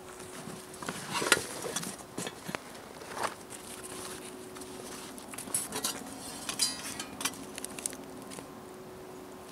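Camp cookware being unpacked by hand: a canvas stuff sack rustling and scattered clicks, then a run of light metal clinks and a short rattle of nested pot and lid pieces about six to seven seconds in.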